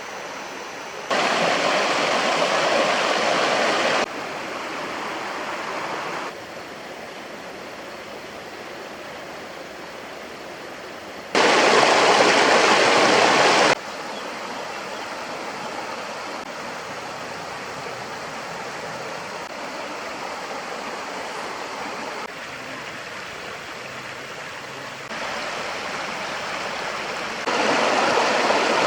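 Stream water running over rocks as a steady rushing noise. The loudness jumps up and down abruptly several times: it is loudest from about a second in to four seconds, around twelve to fourteen seconds, and again near the end.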